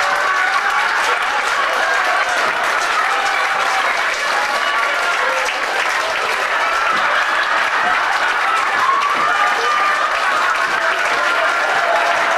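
A theatre audience applauding steadily and at length, with voices faintly audible beneath the clapping.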